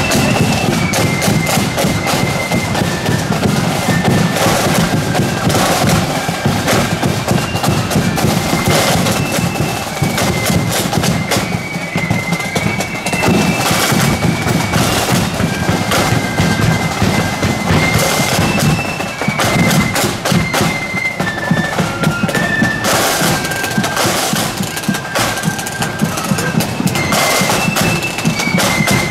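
Marching flute band playing: a high flute melody over snare and bass drums beating a steady march rhythm.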